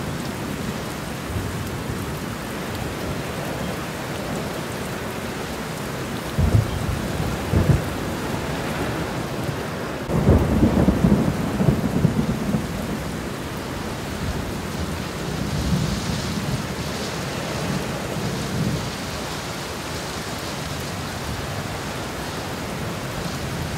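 Heavy rain falling steadily on a wet street, with short low rumbles of thunder about six and eight seconds in and a longer, louder rumble starting about ten seconds in and lasting a few seconds.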